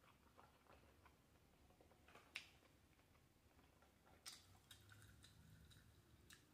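Very quiet close-mic mouth sounds of chewing fried shrimp with the lips closed: faint soft clicks, with a sharper click about two seconds in.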